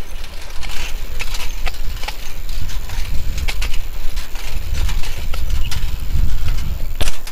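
Wind rumbling on the microphone, with irregular clicks and rattles from a single-speed roadster bicycle ridden on its rear wheel in a wheelie over paver blocks, and a sharp click just before the end.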